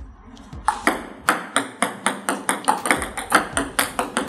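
Table tennis ball clicking sharply off the bats and the table in a quick rally, about four hits a second, starting about a second in.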